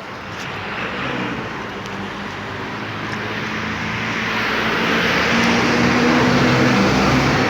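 A motor vehicle passing close by: engine and tyre noise swelling steadily and loudest near the end before starting to fade.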